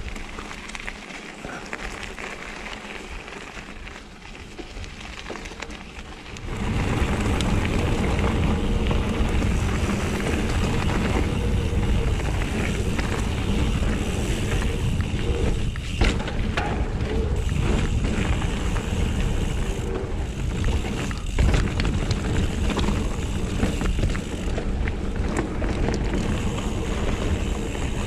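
Mountain bike riding over a dirt trail, with wind buffeting the microphone and the tyres rumbling. It is fairly soft at first, then about six and a half seconds in it gets suddenly louder and rougher as the bike picks up speed, with a few sharp knocks from the bike over bumps.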